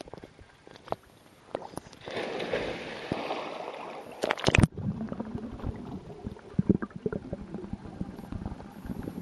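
Water sloshing around a camera held at the surface of a pool, a loud splash about four and a half seconds in, then muffled underwater bubbling and gurgling with low knocks as the microphone is below the surface.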